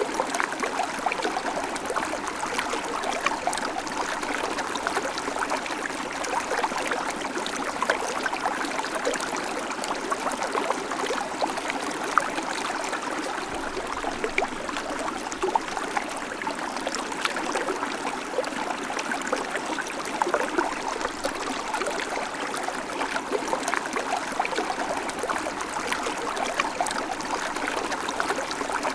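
Babbling creek: shallow water running and trickling over stones, a steady rush with constant small splashes and gurgles.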